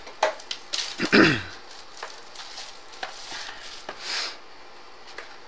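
Handling noise from opening a sealed trading-card box: a few sharp clicks, then a loud scrape that slides down in pitch about a second in, and a crinkly rustle around four seconds, typical of plastic shrink wrap and cardboard being pulled open.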